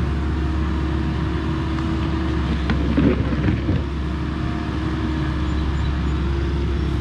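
Volvo ECR58D mini excavator's diesel engine running steadily under working load, with a steady hum throughout. About halfway through, a short run of scraping and knocks as the bucket digs into the muddy bank.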